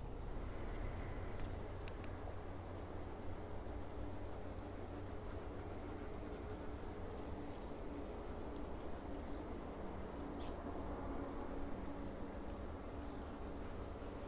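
A dense chorus of meadow insects chirring: a steady, high, fast-pulsing buzz from crickets and grasshoppers in the grass.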